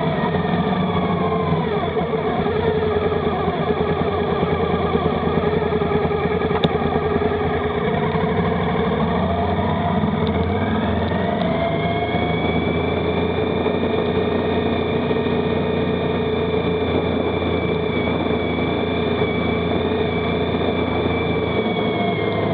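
Motorcycle engine running on the move. Its pitch drops and climbs again about two seconds in, and once more around ten seconds in, then holds steady.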